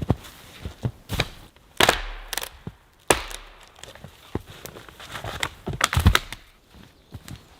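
Irregular sharp knocks and cracks of wood being struck or broken, about five strong hits with rustling between them.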